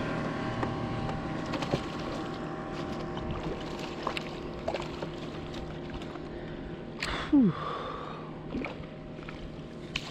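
Steady hum of a motorboat engine running in the distance, with scattered clicks and water splashes as a hooked bass is brought to a kayak's net. A short, loud falling tone cuts in about seven seconds in, and the fish splashes at the surface near the end.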